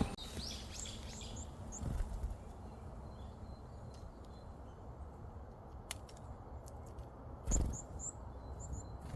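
Small birds giving short high chirps in a few scattered groups, over a low rumble, with a few sharp clicks and a soft thump about seven and a half seconds in.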